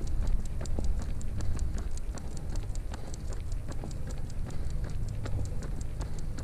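Quick, even clicking of running footfalls and paws on pavement, about five a second, over a steady low rumble of wind and motion on the camera's microphone.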